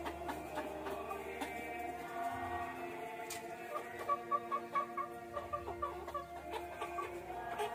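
Chickens clucking, with a quick run of clucks around the middle, over background music with steady held notes.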